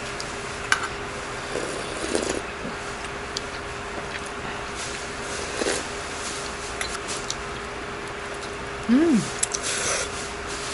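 Eating at a table: a few light clicks of a metal spoon and chopsticks against stainless and ceramic bowls, with a slurp and a short voiced sound near the end. A steady low hum runs underneath.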